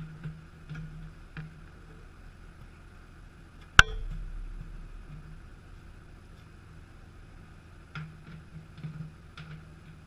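Metal parts and tools being handled during motorcycle wheel work: scattered light clicks and taps, and one sharp metallic clank with a short ring a little under four seconds in, over a steady background hum.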